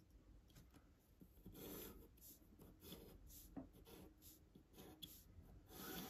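Faint scratching of a pencil drawn along the edge of a steel ruler across paper: two longer strokes, one about one and a half seconds in and one near the end, with light scrapes between.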